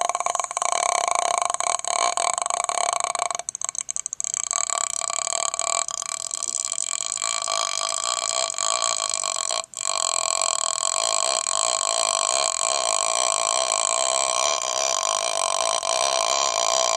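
A man holding one very low sung note with his mouth open: the deep morning voice of someone just woken. The note drops out briefly twice, about three and a half seconds in and again near ten seconds, and carries on each time.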